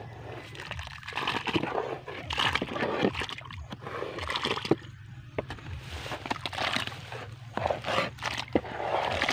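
Damp soil scraped out of a terracotta pot with a small trowel and dropped into a water-filled planting hole: repeated scrapes with clicks of the tool on the pot, and wet sloshing and splatter as the soil lands in the muddy water.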